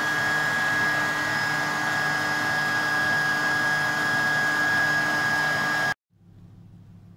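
SilverCrest stand mixer motor running steadily with a high whine, beating creamed butter and sugar as eggs are added. It cuts off suddenly about six seconds in.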